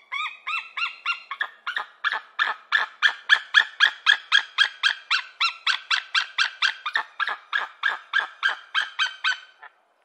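White-tailed eagle calling: a long series of sharp, repeated notes, about three a second, the first few rising in pitch, stopping shortly before the end.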